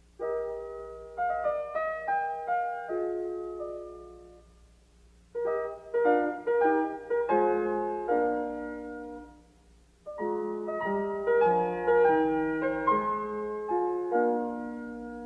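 Background piano music: phrases of struck notes, picking up again after short pauses about five and ten seconds in.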